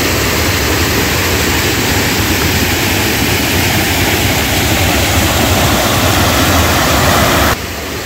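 Dudhsagar waterfall's water rushing and crashing into the rock pool, a loud steady noise with a low rumble underneath. It cuts off suddenly near the end.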